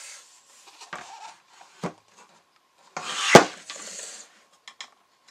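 Plastic tank of a Truma Therme water heater being handled and moved on a table: a few light knocks, then a loud knock with about a second of rubbing about three seconds in, and a couple of small clicks near the end.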